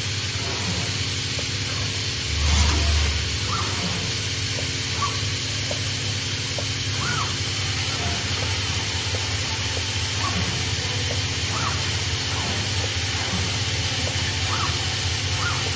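Automatic odd-form insertion machine running: a steady hiss and hum, with short rising-and-falling whines every second or two as the insertion heads move. A low thud about two and a half seconds in.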